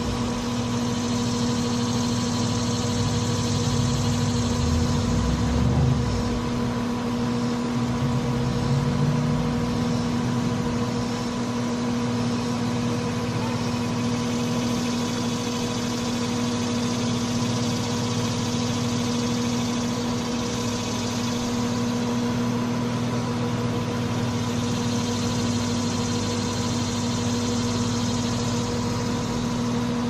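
Carrier 3-ton R410A air-conditioner condensing unit running: a steady hum from the compressor with the rush of the condenser fan.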